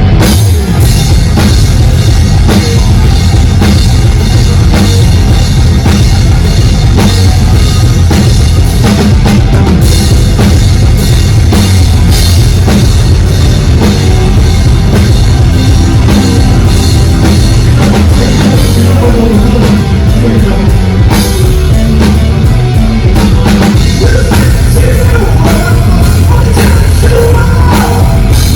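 Loud rock music driven by a full drum kit and heavy bass, starting abruptly and running on steadily.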